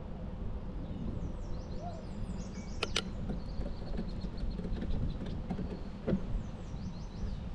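Steady low rumble of tyres and wind on a GoPro riding a bicycle along a paved path. A bird sings runs of quick, high, falling notes twice, and a sharp click comes about three seconds in.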